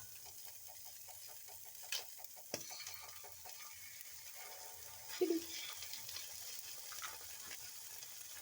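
Chicken frying in a pan with a faint, steady sizzle. There are two light clicks about two seconds in and a short knock of a utensil on the pan about five seconds in.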